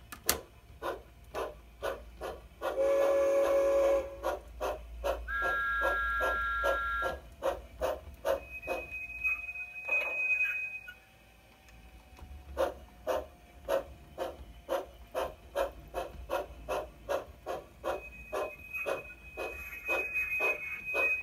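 Sound decoder of a large-scale model steam locomotive playing steady steam chuffs as the engine runs. A held whistle blast comes about three seconds in and a higher two-note whistle follows shortly after. The chuffing stops briefly past the middle, then resumes.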